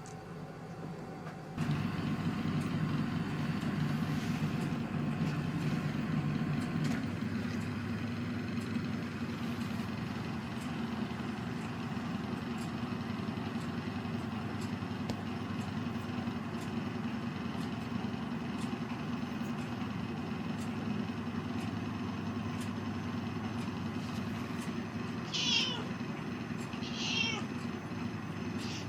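A steady low mechanical hum, like an engine running, starts abruptly about two seconds in. Near the end a cat gives two short meows, about a second and a half apart.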